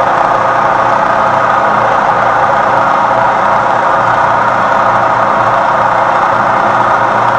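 Lagun knee mill running steadily as an end mill in a Cat 40 tool holder cuts a metal block held in a vise: a continuous machining noise at the test cut of the Cat 40 tooling.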